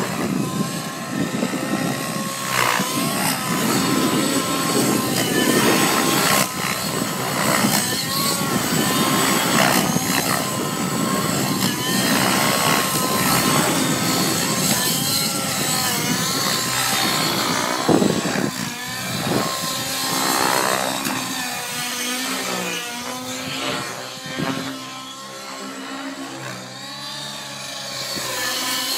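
Align T-REX 700N model helicopter's YS 120SR nitro glow engine, fitted with a tuned pipe, running hard in aerobatic flight, its pitch rising and falling continually as the helicopter manoeuvres. The sound eases off somewhat in the last few seconds as it flies level.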